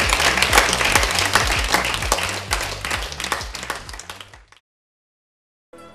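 Studio audience applauding over a low music bed, fading out about four and a half seconds in. A second of dead silence follows, then music starts right at the end.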